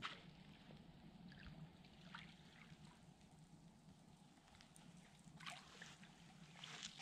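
Faint water splashing at the shoreline: a hooked catfish thrashing at the surface as it is reeled to the bank, a few soft splashes with the stronger ones near the end.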